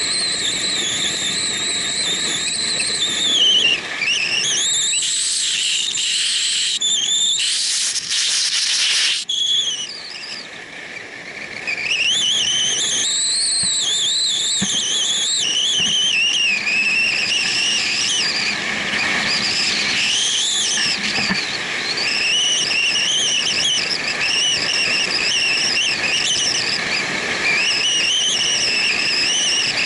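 Wind rushing over a camera mounted on a moving motorcycle, with a high whistle that wavers up and down in pitch. About eight seconds in, a harsher gust briefly takes over, and the sound drops quieter for a couple of seconds after it.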